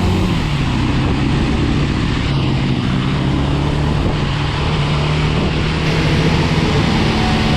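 Vehicle engine running at a steady speed on the road, a constant low hum under a rushing of wind and road noise.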